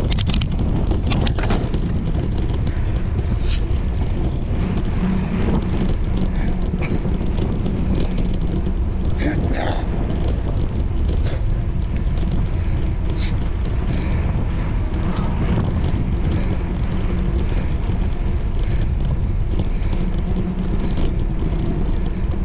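Steady wind rumble buffeting the microphone of a camera moving along a paved path, with a few light clicks and rattles scattered through it.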